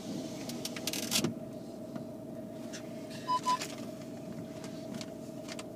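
Footsteps on a gravel path: scattered short crunches, the loudest about a second in, over a steady faint hum. Two short high beeps come a little past three seconds in.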